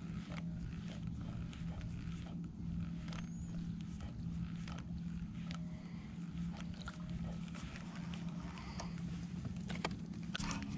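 Bow-mounted electric trolling motor running with a steady low hum, with scattered light clicks and ticks over it.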